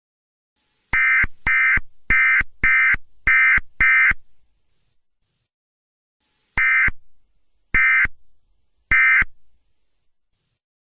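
Emergency Alert System SAME digital data bursts: six quick electronic bursts in about three seconds, a two-second pause, then three more spaced about a second apart.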